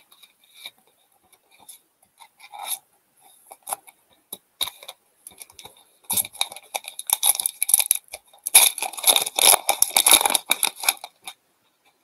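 Foil wrapper of an Upper Deck hockey card pack torn open and crinkled, in two bouts of crackling starting about six and eight and a half seconds in. Before that, a few light clicks of cards being handled.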